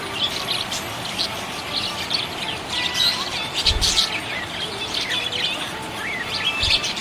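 Budgerigars chirping and chattering without pause in quick, high chirps and short warbling notes. A low thump sounds about four seconds in and another near the end.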